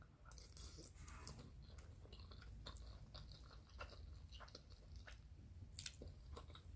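Faint chewing and mouth sounds of a person eating spaghetti, with soft irregular clicks.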